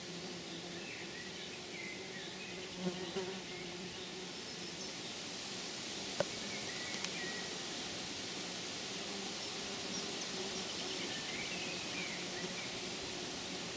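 Outdoor ambience: a steady hiss with a low, faint insect buzz and a few faint bird chirps. There is a soft thump about three seconds in and a sharp click about six seconds in.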